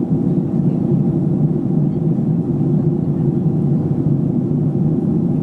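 Airliner cabin noise: the steady low drone of jet engines and airflow, heard from a window seat at cruising altitude.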